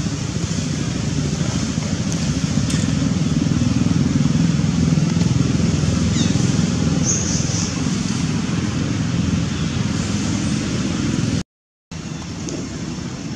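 Steady low rumble of outdoor background noise that cuts out for about half a second near the end, with a few faint high chirps.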